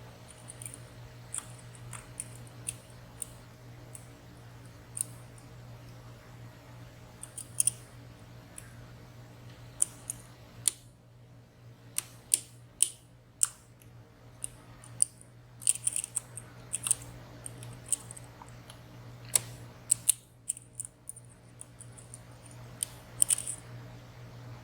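Small, sharp metal clicks and ticks from lock picks working the sliders and pins inside a WSW W10 high-security padlock, coming irregularly with a few louder clicks, over a steady low hum.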